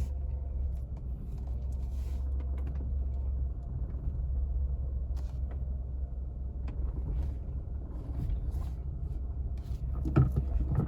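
Renault Sandero's engine and road noise heard from inside the cabin as the car drives, a steady low rumble with a few faint clicks. A short louder sound comes near the end.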